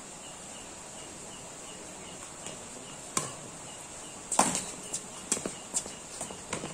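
Badminton rally: sharp smacks of rackets hitting the shuttlecock, mixed with quick shoe steps on the hard court, starting about three seconds in. Under it, a steady chirping of insects.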